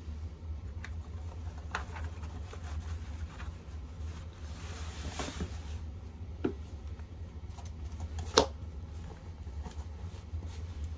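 Boots being pulled off and slip-on slippers put on: rustling of clothes and shoes with a few soft knocks and one sharp knock a little past eight seconds in. A steady low hum sits underneath.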